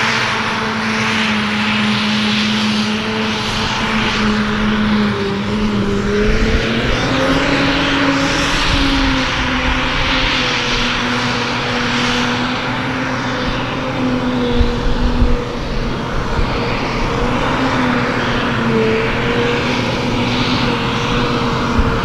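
Self-propelled forage harvester chopping grass: a steady heavy engine drone over the whirr of the cutterhead and blower, the pitch stepping up slightly about seven seconds in. A few brief low bumps come around fifteen seconds in.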